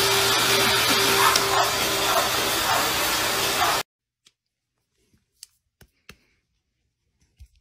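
A vacuum cleaner running steadily with a constant hum, cutting off abruptly about four seconds in. After that, near silence with a few faint ticks.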